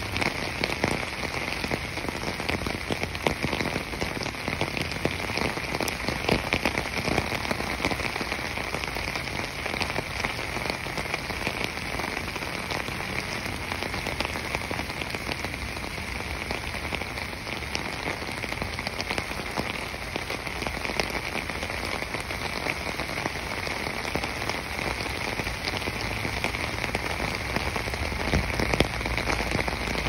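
Steady rainfall: an even hiss dotted with many small drop ticks.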